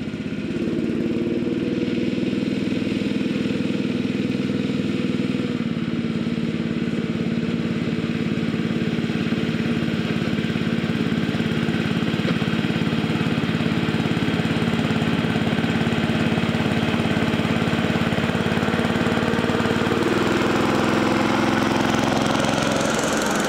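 The small petrol engine of a 7¼-inch gauge miniature locomotive runs flat out at full power, labouring to haul a heavy freight train of full-size-built wagons. It is loud and steady, and its note shifts slightly about five seconds in and again near the end.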